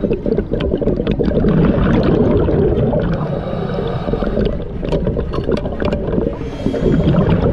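Steady, muffled underwater rumble and gurgling picked up by a diver's camera at depth, with scattered small clicks, typical of scuba bubbles and water moving past the camera housing.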